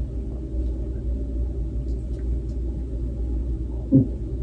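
Steady low background rumble, with a short vocal sound about four seconds in.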